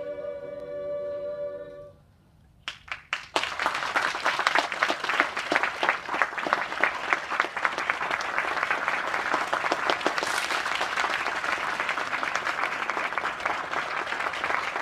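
A choir holds its final chord, which is cut off about two seconds in. After a short silence a few single claps start, and then the audience breaks into steady applause.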